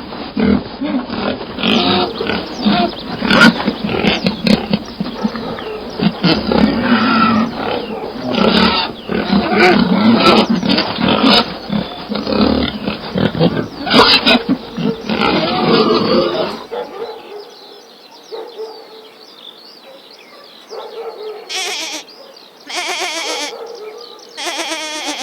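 Loud animal calls and grunts for about sixteen seconds, then a sudden change to a quieter recording with a few short loud calls near the end.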